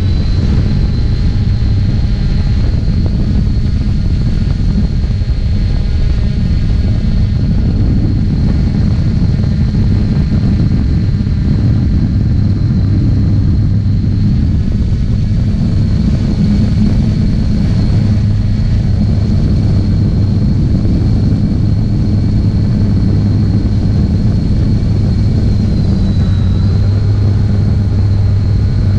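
3DR Solo quadcopter's four electric motors and propellers heard up close through its onboard GoPro: a loud, steady hum with a constant high whine above it that dips briefly near the end.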